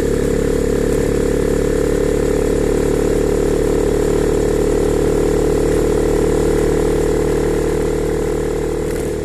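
Honda CB300R's single-cylinder engine idling at a steady speed, with no revving.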